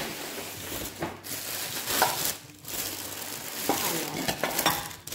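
Packaging rustling and crinkling while new plates are unwrapped and taken out, with a few sharper clicks among the rustle.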